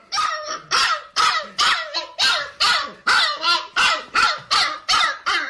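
A dog barking over and over in a fast, even run of about three loud barks a second.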